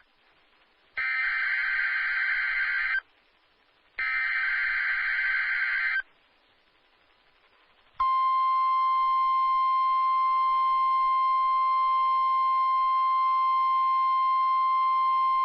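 NOAA Weather Radio emergency alert signal for the weekly test. Two harsh, buzzing digital data bursts of the SAME header, each about two seconds long with a second of silence between them, are followed about eight seconds in by the steady, piercing 1050 Hz warning alarm tone, which holds without a break.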